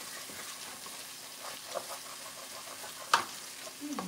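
Tomato paste and chopped tomatoes sizzling in a stainless steel pan as they are stirred, with faint scrapes of the utensil on the pan and one sharp clink of it against the pan about three seconds in.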